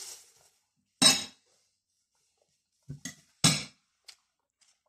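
Eating utensils knocking against plates in a few sharp, separate clinks, the loudest about a second in and about three and a half seconds in.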